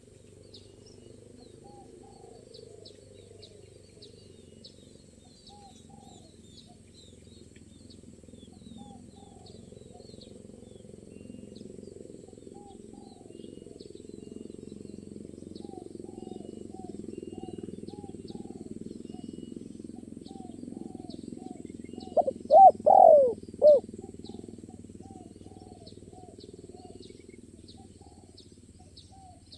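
Spotted dove calling once, a short phrase of about four cooing notes some 22 seconds in, the loudest sound here. Behind it runs a steady background of faint, regularly repeated chirps and high insect-like ticks.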